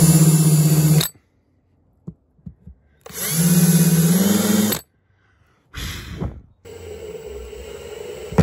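Power drill driving screws through countersunk holes into a plastic wall sleeve flange: two runs of motor whine of about a second and a half each, the second rising slightly in pitch as it finishes. A quieter steady hum follows near the end.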